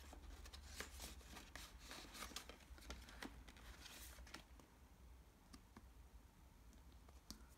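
Faint rustling and tapping of paper and cardstock being handled and flipped. The sounds come thick for the first four seconds or so, then thin to a few scattered taps over a low steady hum.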